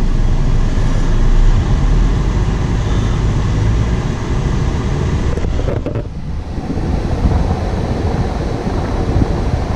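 Dodge Journey's A/C blower running on Max A/C: a steady rush of air from the dash vents, with the engine running underneath. The rush dips briefly about six seconds in.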